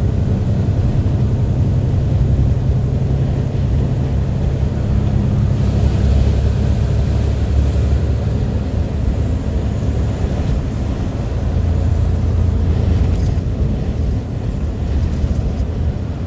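Lorry's diesel engine droning steadily at motorway cruising speed, heard inside the cab, with tyre and road noise.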